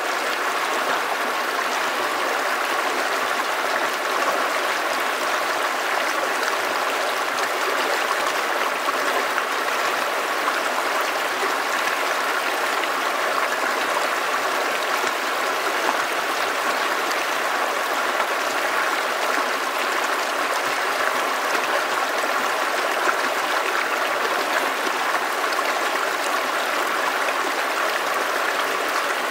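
Shallow creek running over rocks: a steady, even rush of flowing water.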